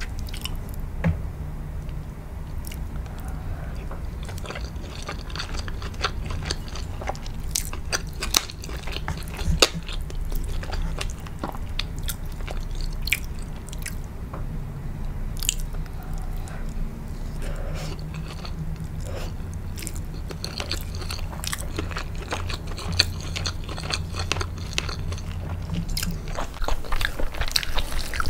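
Close-miked chewing of biryani: wet mouth clicks and smacks of rice and soft pieces being bitten and chewed, over a steady low hum.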